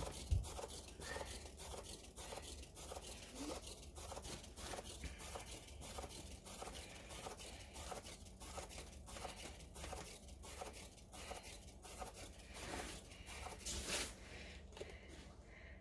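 Faint, irregular crackling and rustling handling noises over a low steady hum.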